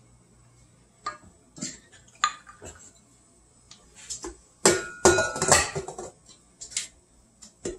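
Metal kitchenware clinking and clattering: a metal measuring cup tapping against a stainless steel mixing bowl of flour and salt, then the bowl knocking and rattling as it is set onto a stand mixer's base, the loudest clatter about five seconds in.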